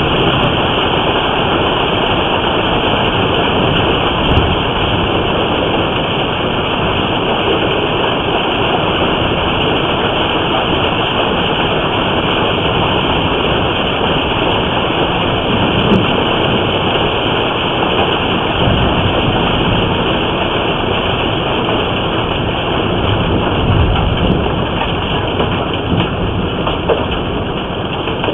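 Hailstorm heard through a surveillance camera's microphone: a steady, heavy downpour of rain and hail hammering down. Low rumbles of thunder swell up about two-thirds of the way through and again near the end.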